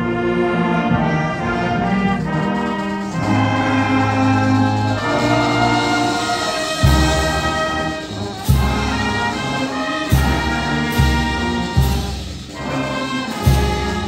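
Marching band of brass and saxophones playing held chords. From about seven seconds in, heavy bass drum hits and cymbal crashes punctuate the music roughly once a second.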